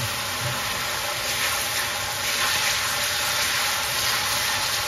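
Chopped onion, garlic and chili sizzling steadily in hot oil in a wok as they are stirred.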